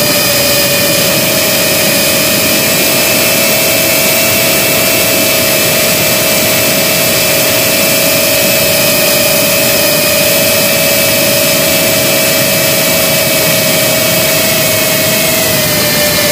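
GEPRC CinePro 4K FPV quadcopter's brushless motors and propellers in flight: a steady high whine over a rush of air noise, the pitch dipping slightly near the end.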